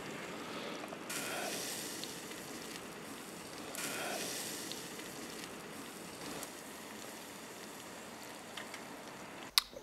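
Flattened chicken sizzling on a grill grate over wood embers, a steady hiss with a couple of small swells and a sharp click near the end.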